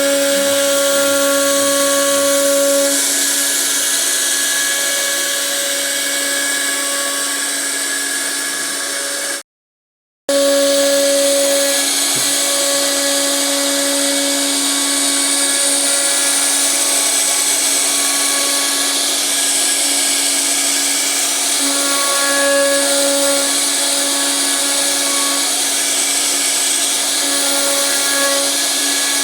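CNC router spindle running and cutting wood: a steady whine made of several held tones over a hiss. The sound drops out completely for under a second about a third of the way in, then resumes.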